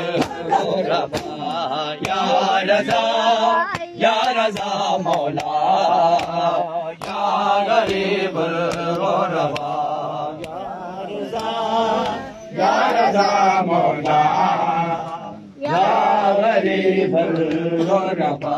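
Men chanting a Shia noha lament in unison, with sharp chest-beating slaps of matam keeping time, about two a second in the first seconds and sparser later.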